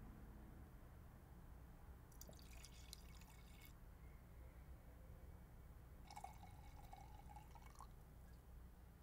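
Wine poured from a glass bottle into a wine glass, faintly, twice: one pour of about a second and a half, then another of about two seconds whose pitch rises near the end as the glass fills.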